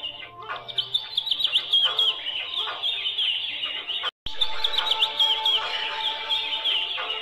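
Birds chirping in quick, repeated calls over soft background music. The sound cuts out for a moment about four seconds in, then resumes.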